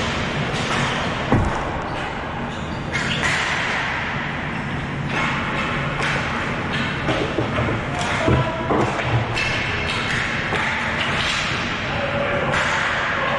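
Ball hockey play: sharp knocks and thuds of sticks and the ball, one about a second in and a cluster of several later on, over a steady background noise.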